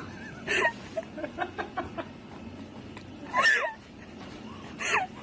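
Domestic cat meowing three times, the middle meow the loudest, with a few faint ticks between the calls.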